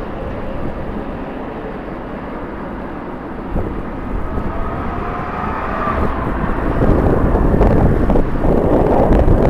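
Jet airliner engines running, with strong wind buffeting the microphone; the noise swells and grows louder about seven seconds in.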